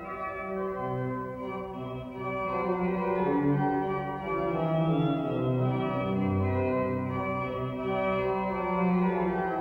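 Organ music: sustained chords held over a bass line that moves step by step.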